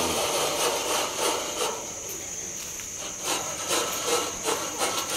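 Steady high-pitched insect drone, with irregular short rubbing and scraping sounds from about three seconds in.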